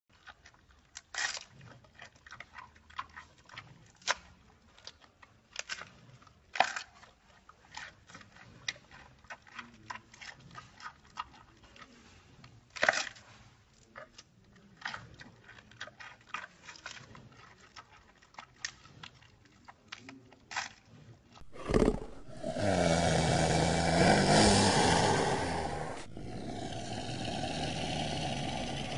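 Giant panda chewing and biting through bamboo stalks: a run of crisp cracks and crunches. About 22 seconds in, a much louder, long leopard growl takes over, in two drawn-out stretches with a short break between them.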